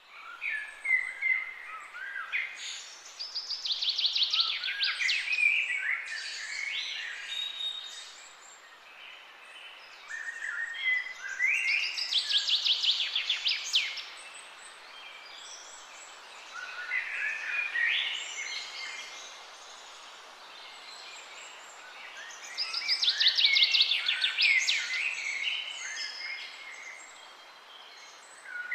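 Songbird singing in repeated bursts of a few seconds each, about four times, every phrase full of fast, high trills and quick notes, over a steady background hiss.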